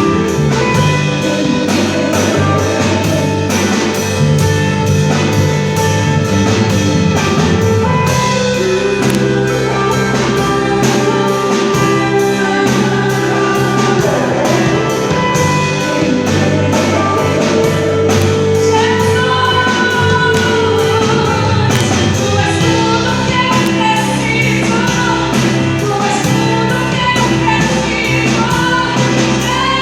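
A band rehearsing a gospel song, with drum kit, bass and held chords. A singing voice comes in with the melody about two-thirds of the way through.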